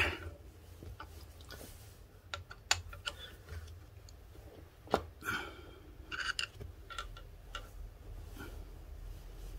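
Small metal parts of a car's rear brake wheel cylinder being worked by hand: a few sharp clicks, then short bursts of light clinking and scraping as the piston and its rubber seal are pushed out with a thin rod and handled.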